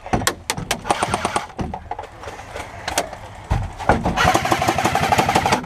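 Bursts of rapid airsoft gunfire: electric airsoft rifles clattering on full auto, a fast even rattle strongest in the second half, with a few sharp single cracks near the start.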